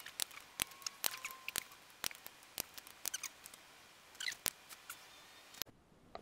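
Sharp metallic clicks from a socket wrench working the flywheel bolts, a couple a second at uneven spacing, stopping shortly before the end.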